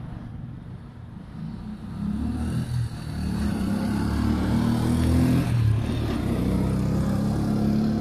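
The 200 cc air-cooled petrol engine of a Chinese motor tricycle running. Its revs rise and it gets louder about two seconds in, then holds at the higher speed.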